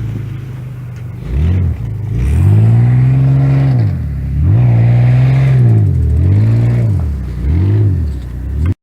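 An engine revved up and down about five times, its pitch rising, holding and dropping with each rev; it cuts off abruptly near the end.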